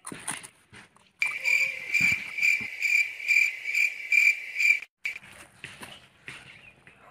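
Cricket chirping in a steady, even pulse about twice a second. It starts suddenly about a second in and cuts off sharply near five seconds, with faint rustles and clicks around it.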